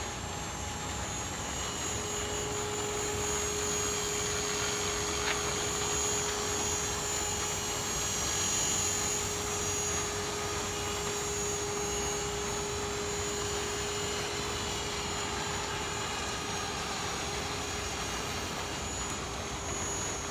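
Thunder Tiger Mini Titan 450 electric RC helicopter in flight: the steady whine of its brushless motor and the noise of its spinning rotor over a constant hiss, with a steady tone that sets in about two seconds in.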